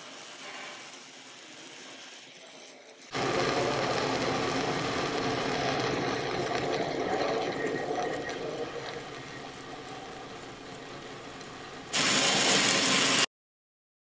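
Shielded metal arc (stick) welding with a 7018 electrode: the arc's steady crackling hiss as a fill pass is run on steel plate. It jumps louder about three seconds in and cuts off suddenly just before the end.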